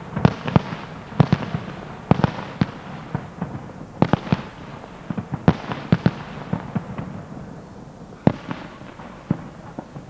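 Fireworks display going off: a quick, irregular run of about twenty sharp bangs, sometimes two or three close together, thinning out over the last few seconds.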